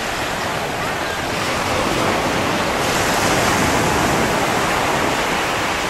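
Ocean surf: a steady rush of waves.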